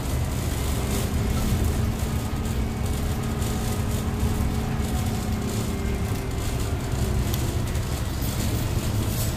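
A city bus driving, heard from inside the cabin: a steady low rumble of motor and road noise, with a faint steady hum in the first half.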